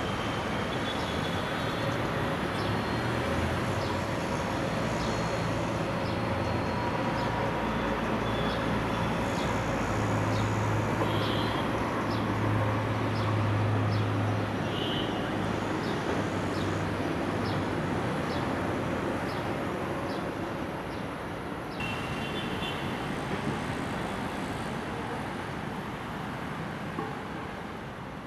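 Steady city road traffic noise with a low engine drone that swells through the middle, and faint high ticks repeating about once a second over it. The background changes abruptly about three quarters of the way through.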